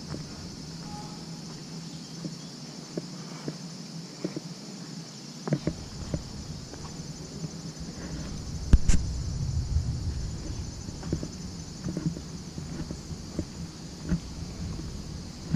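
Footsteps on a dirt woodland path, soft uneven thuds about once a second, with one louder knock a little past halfway, over a steady high insect drone.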